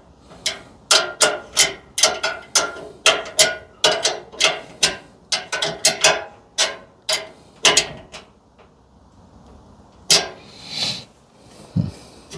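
A hand tool clicking steadily, about two to three sharp clicks a second, as a gas fitting on a water heater's pilot assembly is turned. The clicking stops about eight seconds in. A short rustle and a thump follow near the end.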